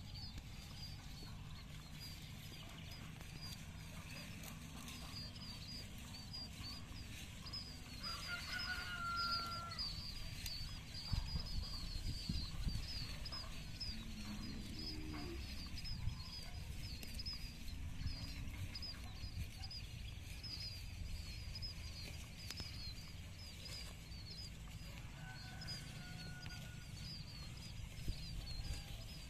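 Farmyard ambience: chickens clucking, with a few pitched calls about a third of the way in. A steady run of rapid high chirps continues throughout.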